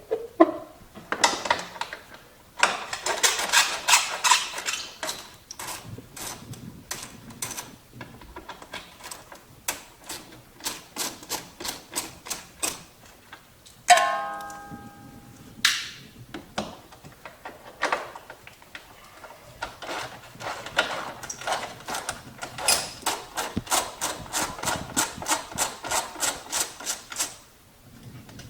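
Ratchet wrench clicking in runs of quick, even clicks as 10 mm fender bolts are turned out. About halfway through there is a single metallic clang that rings for a couple of seconds.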